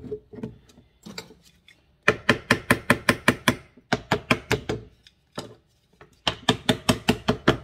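A plastic blender jar knocked rapidly, about six sharp knocks a second in three runs, to loosen ground dried-chili seasoning stuck inside it.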